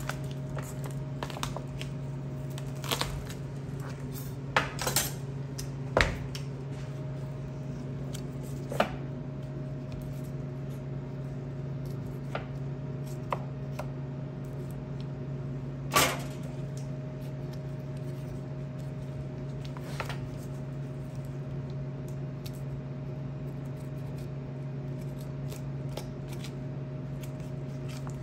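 Scattered clinks and knocks of a knife and kitchen utensils against a cutting board and dishes while a whole chicken is butchered, over a steady low hum. Two knocks, about six seconds in and near the middle, stand out as the loudest.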